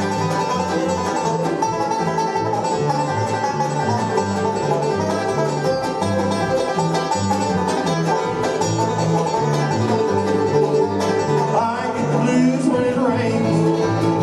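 Bluegrass band playing an instrumental intro: fast banjo picking and guitar over a bass line that steps up and down in a steady rhythm.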